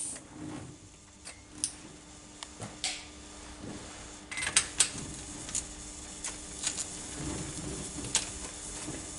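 Scattered light metallic clicks and taps of tools and fittings being handled on a bare diesel engine, with a few sharper clicks near the middle and one near the end, over a faint steady hum.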